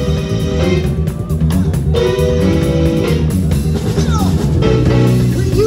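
Music with guitar and a drum beat.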